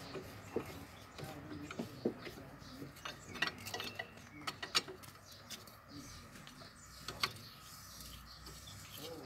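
Irregular metal clicks and clinks of a socket wrench working the exhaust nut at the cylinder head of a small air-cooled single-cylinder engine. The clicks come thickest a few seconds in.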